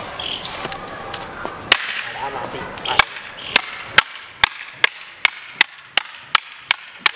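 Bamboo lathi sticks clacking together in sparring: a few scattered strikes, then from about three seconds in a fast, even run of about three clacks a second.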